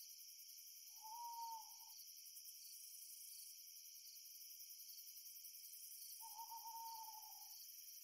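Two long owl hoots, each about a second long, the first about a second in and the second about six seconds in, over a steady high-pitched chorus of crickets.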